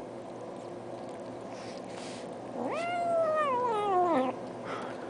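A domestic cat's single meow, about a second and a half long, starting about two and a half seconds in. It rises quickly, then slides slowly down in pitch.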